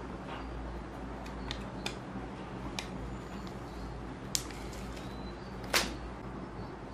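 Fingers picking at a sticker on a small cardboard box and peeling it off: scattered light clicks and taps, then two sharper snaps about four and a half and nearly six seconds in, the second one the loudest. A steady low hum runs underneath.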